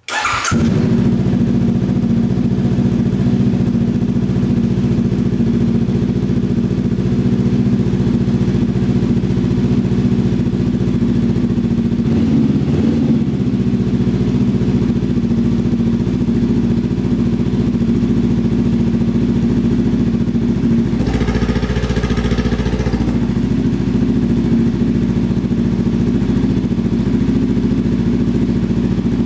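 Honda CBR500R's parallel-twin engine idling through a cheap KO Lightning slip-on exhaust with its dB killer fitted, the muffler held loosely on by hand; still really loud despite the dB killer. The pitch rises briefly about twelve seconds in, and the sound changes briefly again around twenty-one seconds.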